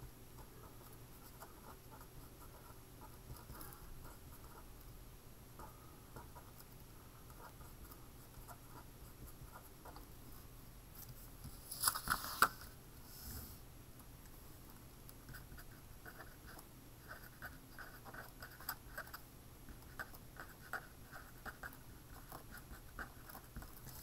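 Pen scratching faintly on paper as a line of notes is handwritten, in short strokes with small pauses. About halfway through there is a brief louder rustle.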